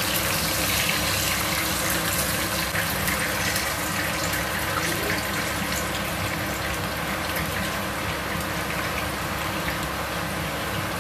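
Whole fish frying in hot oil in a pan: a steady sizzle with many small crackles.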